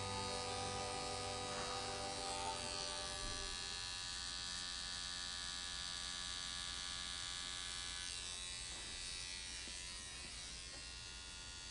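Pen-style rotary tattoo machine fitted with a 9 round liner needle, buzzing steadily as it lines skin. The buzz eases slightly in level over the last few seconds.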